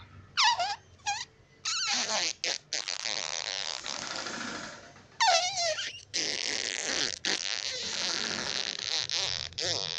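Comedy fart sound effects edited in: two long, sputtering farts, with short falling squeals before and between them.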